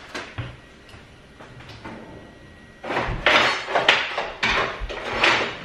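Kitchen cutlery drawer pulled open and metal utensils clattering as they are rummaged through to pick out a wooden spoon. The clattering comes in a burst of several loud rattles starting about three seconds in, after a few light clicks.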